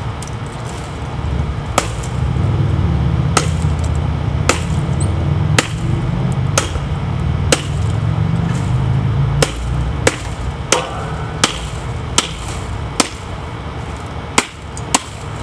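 Buck 632 Mesa knife chopping into a thick, hard palm frond stalk resting on a wooden stump, with about fourteen sharp chops roughly a second apart. A low rumble runs under the chops through the middle.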